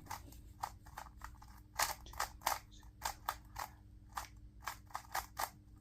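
Plastic 2x2 speed cube being turned by hand, a quick irregular run of sharp clicking turns.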